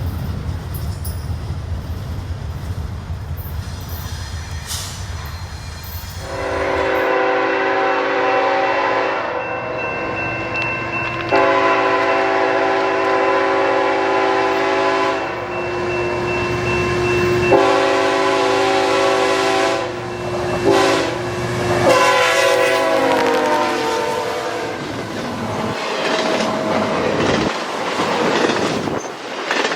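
A CPKC freight train's locomotive rumbling as it approaches, then its multi-chime air horn sounding a chord in several long blasts with shorter ones between, the pitch dropping as the locomotive passes. Near the end the wheels clatter over the rail joints.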